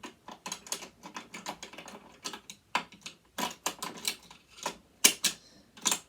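Irregular metallic clicks and taps, several a second, as tools and loose parts inside a sewing machine are worked at during dismantling, a part being worked loose.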